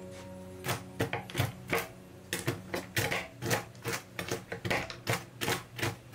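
Chef's knife chopping mixed nuts on a wooden cutting board: a few scattered chops, then quick, even chopping from about two seconds in, roughly four or five strikes a second.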